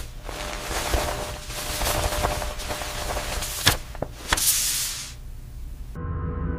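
Crisp banknote paper rustling and crackling as US hundred-dollar bills are fanned and flicked, with two sharp snaps about three and a half and four seconds in, then a swish. Near the end the rustling cuts off and a dark music drone begins.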